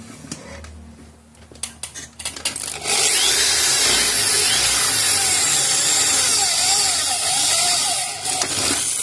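Maktec MT60 electric drill boring through a thin-walled metal square tube, after a few light handling clicks. The drilling noise starts about three seconds in, runs steadily for about five seconds, and eases just before the end as the bit breaks through.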